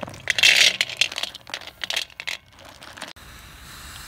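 Field snails dropped by the handful into an empty aluminium wok, their shells clattering and clinking on the metal. The clatter is loudest about half a second in, thins to scattered single clicks, and near the end gives way to a soft steady hiss.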